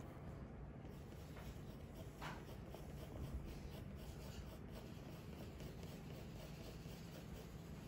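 Faint scratching of a brown drawing pencil stroking across grey drawing paper in short shading strokes.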